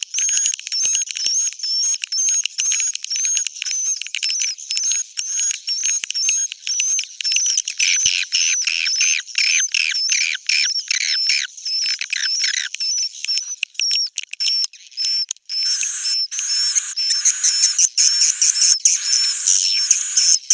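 Swiftlets twittering: a dense, fast run of high-pitched repeated chirps. This is the 'inap' roosting call played in swiftlet houses to lure the birds to roost and build nests.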